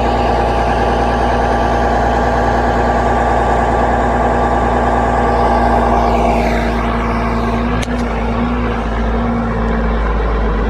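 Case IH 9390 four-wheel-drive tractor's diesel engine running loudly and steadily close by, with a single sharp click about eight seconds in.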